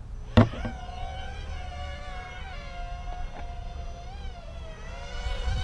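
Blade Nano QX2 micro quadcopter's tiny brushed motors and propellers spinning up after a sharp click about half a second in, then a high buzzing whine that wavers in pitch as the drone lifts off and hovers.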